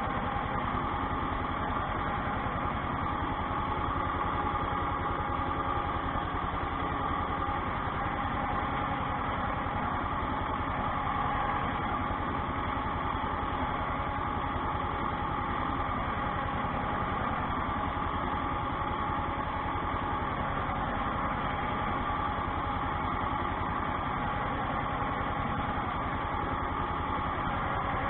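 Ursus tractor's diesel engine running at a steady pace, heard from inside the cab while it pulls a potato hiller along the rows.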